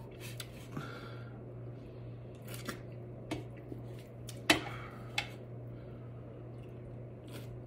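Quiet close-miked mouth sounds of someone chewing: a few separate soft clicks and lip smacks over a steady low hum.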